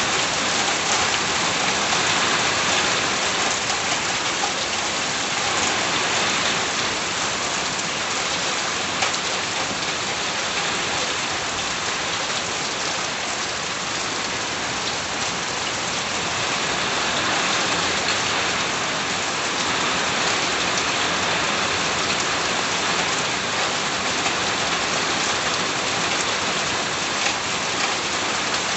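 Steady rain falling, an even hiss of many raindrops with scattered individual drop ticks.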